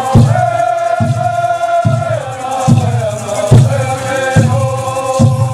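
A group of singers chanting a Pueblo mixed animal dance song over a steady drum beat, a little over one stroke a second.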